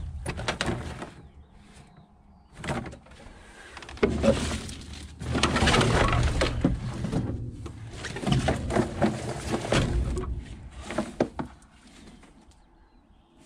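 Irregular knocks, clatter and scraping of scrap items being handled, busiest in the middle and thinning out near the end.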